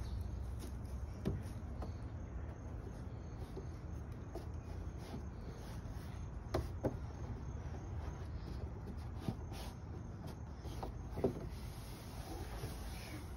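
Hands and bare feet knocking on a plastic slide as a toddler clambers up it: a few short, sharp knocks spread through, over a steady low rumble.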